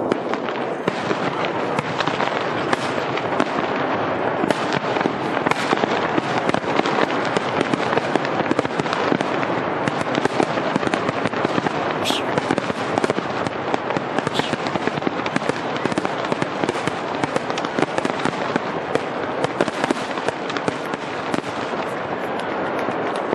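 Fireworks going off in a dense, continuous rapid crackle of many small bangs, with no let-up.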